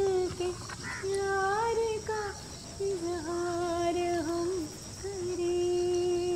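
A person humming a slow song melody without words: long held notes that glide gently between pitches, in three or four phrases with short breaks between them.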